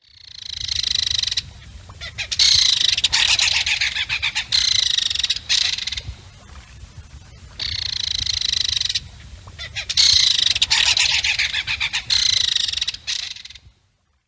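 Belted kingfisher giving its dry, rapid rattle call in four bouts, the longest lasting about three seconds, over a steady low rumble of background noise.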